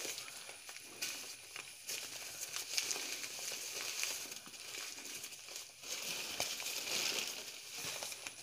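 Paper bag and plastic packets crinkling and rustling as hands untie and open the knotted paper bag, with scattered sharp crackles.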